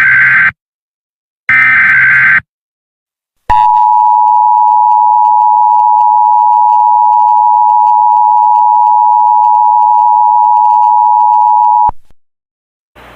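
Emergency Alert System alert opening: the last two of the three short, screechy SAME header data bursts, then the two-tone EAS attention signal (853 and 960 Hz together), held steady for about eight seconds before it cuts off sharply.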